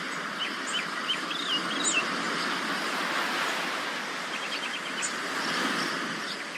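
Sea waves washing on the shore in a steady rush that swells and eases, with birds chirping over it: scattered short chirps in the first two seconds and a quick run of chirps about four and a half seconds in.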